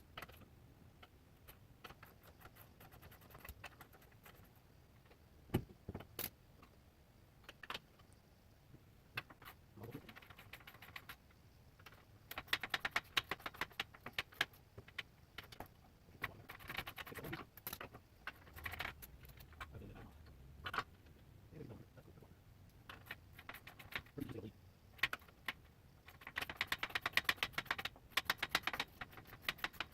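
Metal hand tools and hardware rattling and clicking, in bursts of rapid clicks with scattered sharp knocks.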